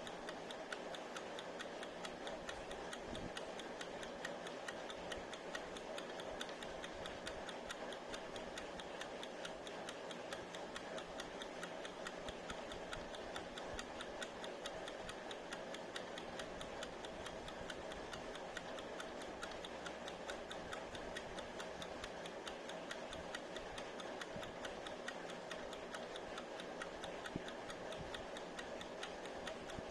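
Mechanical wind-up kitchen timer ticking steadily and rapidly as its clockwork runs.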